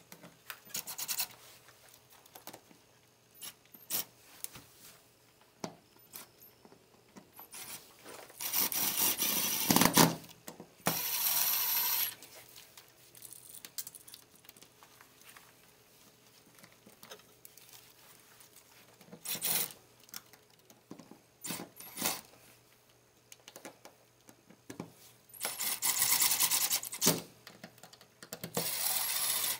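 Cordless drill/driver running in four short bursts, two near the middle and two near the end, driving the mounting screws of duplex receptacles into a metal old-work box. Between the runs, small clicks and rattles of metal screws and parts being handled.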